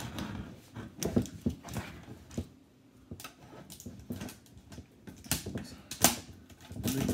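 A plastic seal strip being cut with a small blade and peeled from around the lid of a metal popcorn tin: irregular scrapes, crinkles, clicks and taps against the tin.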